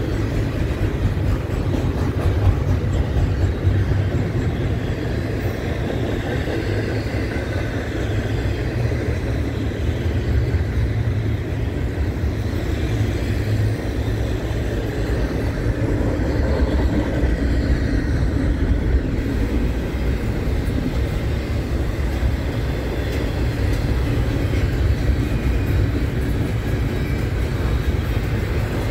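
Double-stack intermodal container well cars of a long freight train rolling past on the main track: a steady, continuous low rumble of steel wheels on rail.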